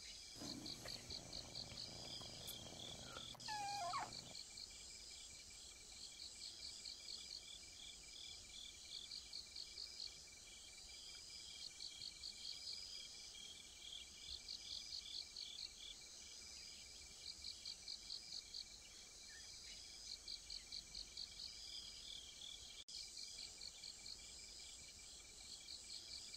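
Insects chirping in repeated bursts of rapid pulses, over a steady thin high trill. A brief falling squeak stands out about three and a half seconds in.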